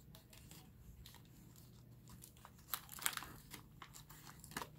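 Plastic and paper medical supply packaging crinkling as it is handled, faint at first, then a few sharp crackles in the second half.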